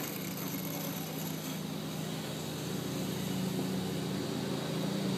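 A motor or engine running steadily with a low hum that slowly grows louder, over a faint even hiss.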